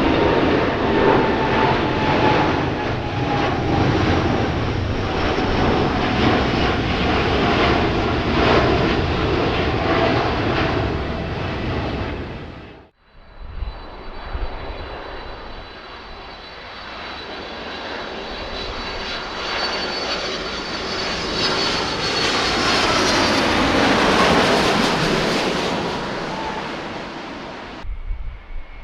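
Boeing 787 turbofan engine running at climb thrust: a steady roar with whining tones. About halfway through, the sound cuts to the engine at lower approach power, a quieter roar with a high whine that grows louder and a tone that sweeps down in pitch.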